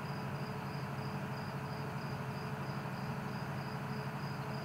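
A cricket chirping steadily, high-pitched, about two or three chirps a second, over a steady low hum.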